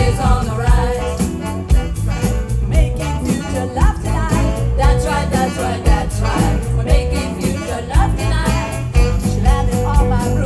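A live band playing a song: singing over bass and drums with a steady beat.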